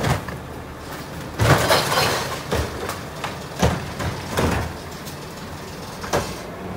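Garbage truck with a Curotto-Can automated arm handling a trash cart: a series of metallic bangs and clanks as the arm grabs and dumps the cart, loudest about a second and a half in, over the truck's engine running.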